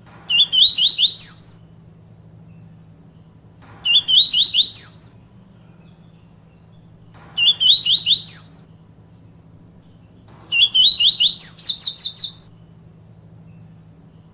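Papa-capim (yellow-bellied seedeater) singing its 'tui tui viviti' song: four short phrases of quick rising whistled notes, one about every three and a half seconds. The last phrase is longer and ends in a fast run of repeated notes. A faint steady low hum lies underneath.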